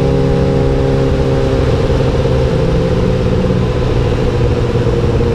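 Honda CBR1000RR Fireblade's inline-four engine running at a steady highway cruise of about 90 km/h, under a broad rush of wind noise on the microphone. The engine note shifts slightly about two seconds in.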